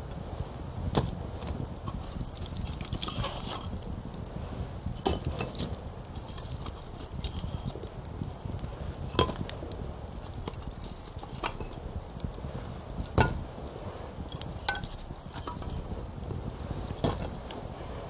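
Wood campfire burning, with irregular crackles and a handful of sharp, louder pops a few seconds apart over a steady low rumble.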